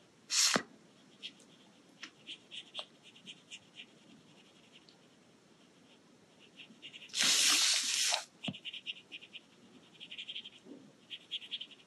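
Water brush tip stroking across paper, making faint light scratches as it blends watercolour-pencil shading. Two louder bursts of hiss stand out: a short one about half a second in and a longer one of about a second near the middle.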